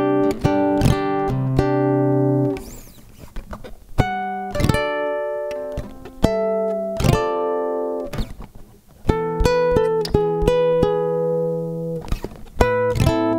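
Harley Benton HBO-850 nylon-string electroclassical guitar heard through its pickup, plugged straight into an audio interface, playing chords that ring out. The sound dies away twice between phrases.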